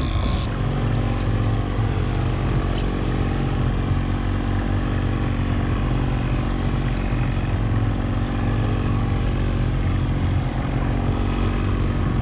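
Boat motor running steadily at trolling speed, an even drone with a layer of wind and water noise.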